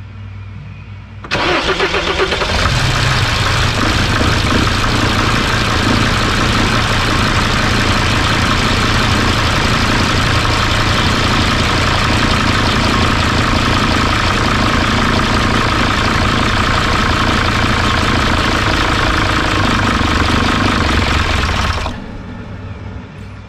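Freshly swapped Mercedes OM612 five-cylinder common-rail diesel with an OM647 head is cranked by the starter about a second in and catches almost at once. It runs at a steady idle for about twenty seconds, then shuts off abruptly on its own, the same stall as the previous attempt, which the owner suspects may come from air in the fuel lines.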